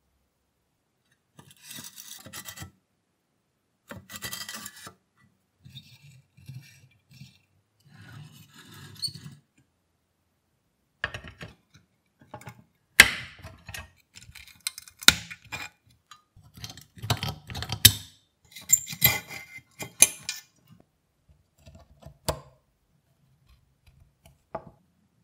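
Hands taking apart a rusty pressed-steel toy truck on a table: short bursts of rubbing and scraping of rusty metal, then a run of sharp clicks and snaps as side cutters work a rusty wire free. The loudest snap comes about 13 seconds in.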